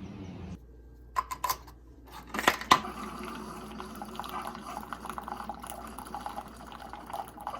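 A few light clicks and clinks of dishware, then water running and pouring into a container.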